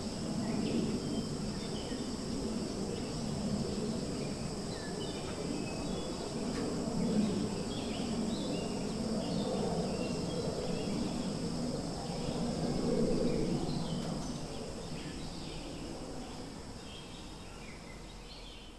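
Forest ambience: a steady high insect drone with many short bird chirps, over a louder low rumble; it fades out near the end.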